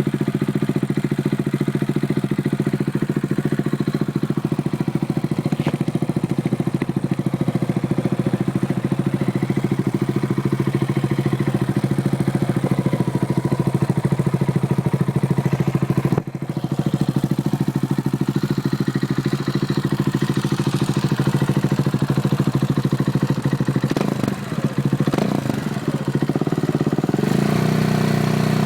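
KTM 690 Duke's single-cylinder engine idling steadily through an aftermarket exhaust, with a few quick blips of the throttle near the end.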